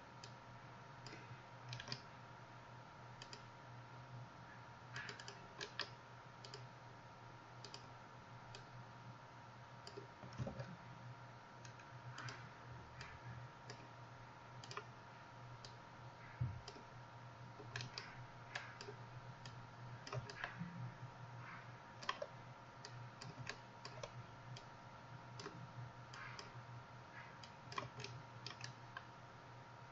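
Faint, irregular clicks from a computer mouse and keyboard, a few dozen spread unevenly, over a steady low hum.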